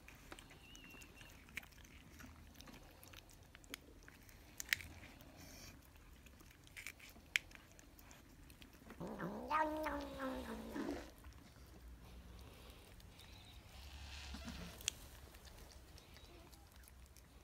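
A cat gives one long, drawn-out meow lasting about two seconds, about halfway through. Around it are scattered small clicks from cats licking at a squeeze-tube treat.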